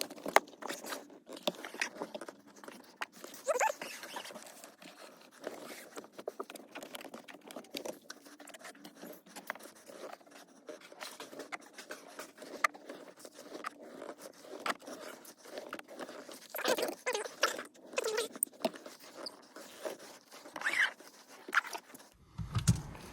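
Irregular scraping and rubbing on windshield glass as the glass is cleaned before tinting, with a few short squeaks in the second half.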